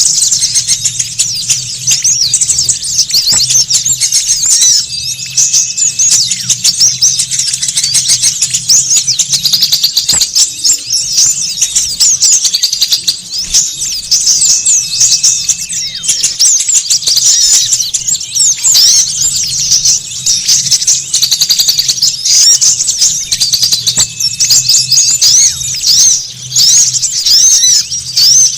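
A dense chorus of many small songbirds chattering at once, with rapid, overlapping high-pitched chirps and trills that never let up. It is played as a lure call to draw in small wild birds.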